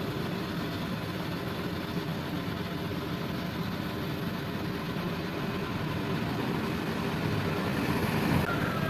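Excavator's diesel engine running steadily, growing a little louder near the end.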